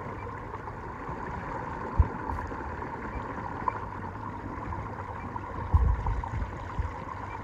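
Electric bow-mount trolling motor (a 12-volt, 55-pound-thrust Haswing Cayman) running steadily on a kayak under way, a constant hum over water noise. A sharp low thump comes about two seconds in and a brief low rumble near six seconds.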